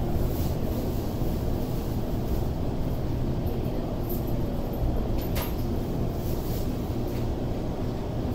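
Tokyo Metro 05 series subway car heard from inside, rolling slowly along a station platform as it brakes to a stop: a steady low rumble of wheels and running gear, with a few brief high squeaks about halfway through.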